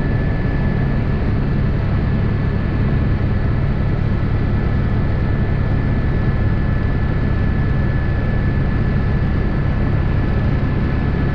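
Helicopter running steadily: a loud, even drone with a thin, steady high whine over it.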